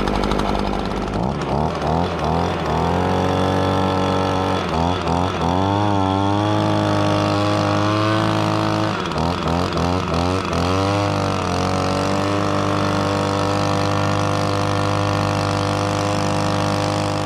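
Leaf blower running at high speed to blow water off a washed ATV, its engine pitch dropping and climbing back several times as the throttle is eased and opened again.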